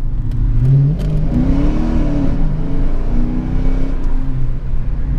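A 2014 Dodge Challenger R/T's 5.7-litre Hemi V8, fitted with a cold air intake, accelerating hard at full throttle. The engine note climbs, dips and climbs again more than once as it pulls.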